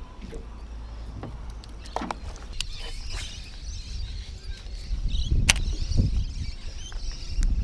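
Wind buffeting an outdoor camera microphone, the rumble growing heavier after about five seconds, with scattered sharp clicks and knocks from a baitcasting rod and reel being handled.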